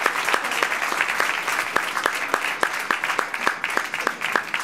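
Audience applauding, the clapping slowly thinning out.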